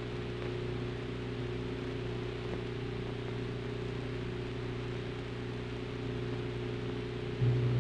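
Steady low electrical hum with hiss, the background noise of an old film soundtrack between narration, with no other sound; the hum grows louder shortly before the end.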